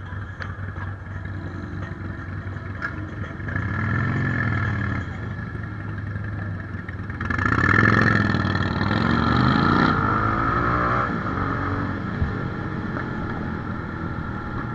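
Motorcycle engine running and revving as the bike pulls away and rides, the pitch rising and falling around four seconds in and again, louder, from about seven to eleven seconds. Other motorcycles idle nearby.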